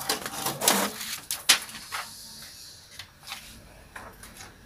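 Irregular clicks, knocks and rubbing of things being handled on a desk, busiest in the first two seconds and then sparser and quieter.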